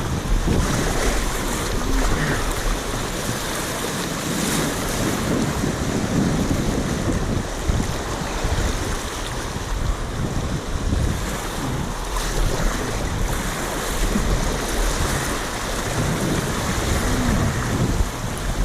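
Whitewater rapid rushing steadily, with wind buffeting the microphone.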